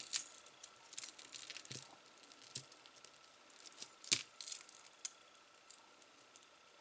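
Metal jewelry clinking and jingling as pieces are picked up and handled: a scatter of small clicks and jingles, the sharpest about four seconds in.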